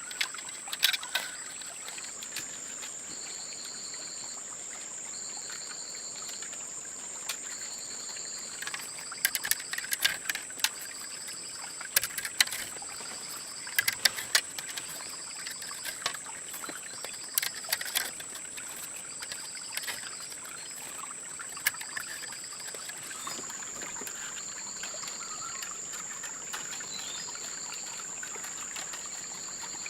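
Insects trilling: a steady high, continuous trill with a second insect chirping about every two seconds. Scattered sharp clicks and knocks come in small clusters through the middle.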